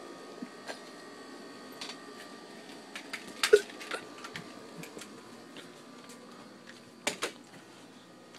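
A faint steady hum with scattered sharp knocks and clicks: a quick cluster about three and a half seconds in, the loudest moment, and a pair of knocks near seven seconds.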